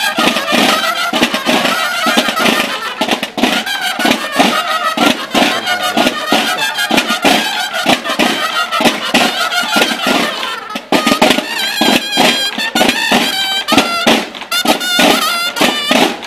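Loud music with rapid, dense percussion hits under a pitched melody.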